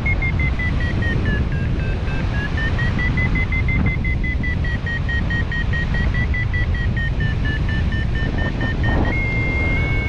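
Hang-gliding variometer beeping in fast pulses, its pitch sagging, rising and sagging again, then jumping higher near the end: the climb tone of a glider going up in lift. Heavy wind rush on the microphone underneath.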